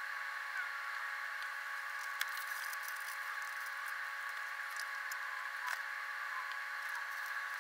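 Workshop ambient sound played back six times fast: a steady high hum with hiss and a few scattered small clicks.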